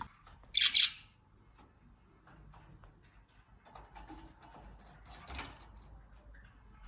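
Budgerigar giving a short high chirp about half a second in and a weaker one around five seconds in, with faint scattered ticking clicks in between.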